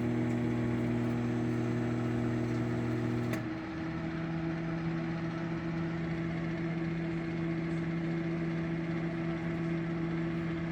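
Sharp Carousel countertop microwave running with a steady hum. About three and a half seconds in there is a click, and the hum drops a little and changes pitch as the oven cycles its power on the 50% setting, leaving the fan and turntable running.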